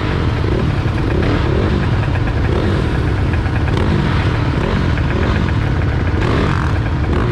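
Several ATV and dirt bike engines idling together, with repeated throttle blips rising and falling in pitch over the steady running.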